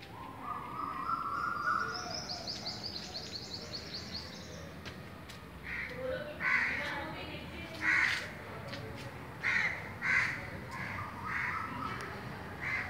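Birds calling: a fast, high trill in the first few seconds, then a run of short, harsh calls repeated every second or so from about six seconds in.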